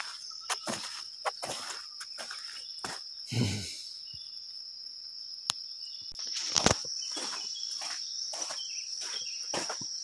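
Steady, high-pitched drone of an insect chorus, growing louder about six seconds in, with footsteps on a muddy dirt track.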